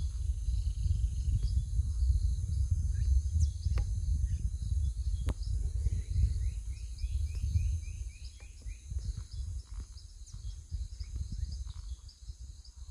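Rainforest ambience: a steady high insect drone, with a bird giving a quick run of about ten short rising notes from about six to eight seconds in. A low rumble on the microphone is the loudest sound for the first eight seconds, then drops away.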